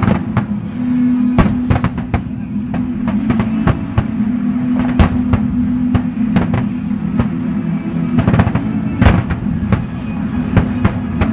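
Aerial fireworks bursting in a fast, irregular string of sharp bangs and cracks, about a dozen or more, with the loudest near five and nine seconds in. Under them runs a steady low-pitched drone of accompanying music.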